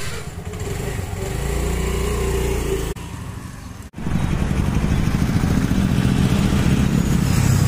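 Small motor-scooter engine running at a steady idle. About four seconds in, the sound gives way to a denser, steady low rumble of street noise.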